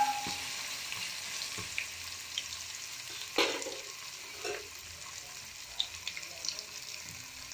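Ginger paste and curry leaves sizzling in hot oil in a steel pan: a steady frying hiss with scattered small pops. One louder sharp sound comes about three and a half seconds in.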